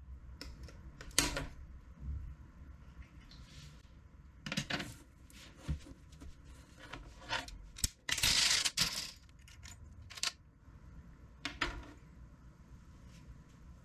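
Small hard keyboard parts clicking and clinking as they are handled and set down, with a longer clattering rattle about eight seconds in.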